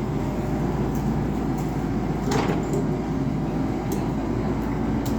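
Komatsu PC78 excavator's diesel engine running steadily, with a short sharp noise about two seconds in.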